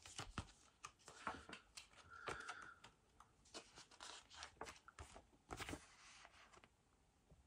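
Faint paper rustles and flicks as the pages of a small paper mini-comic are turned and handled, an irregular run of soft crackles that stops near the end.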